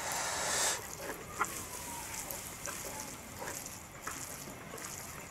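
Quiet sounds of fingers mixing rice and pork curry in a wooden bowl: soft scattered clicks and squelches, after a brief hiss at the start.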